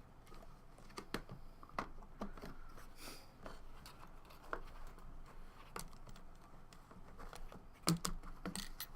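Trading cards and their plastic cases being handled: scattered light clicks and taps, with a louder knock near the end.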